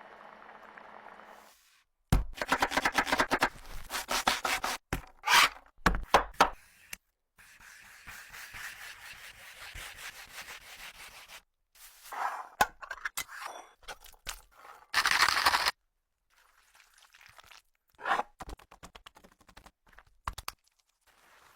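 Food-preparation sounds edited together in short clips that cut in and out abruptly: scraping, rubbing, cracks and sharp knocks of utensils and food.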